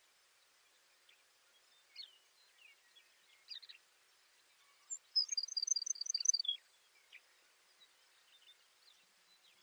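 Baird's sparrow singing once, about five seconds in: a high opening note, then a fast trill of rapidly alternating high notes for about a second and a half, ending on a lower note. Faint scattered chirps of other birds sound before and after it over a steady hiss.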